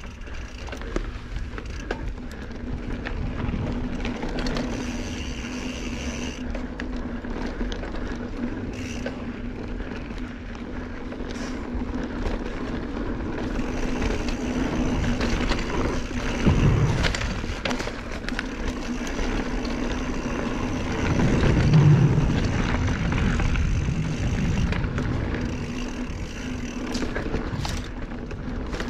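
Mountain bike rolling down dirt singletrack: tyres crunching on loose dirt, with the chain and frame clattering and knocking over bumps and wind rushing past the chest-mounted microphone. It gets louder twice, in the middle and about two-thirds through.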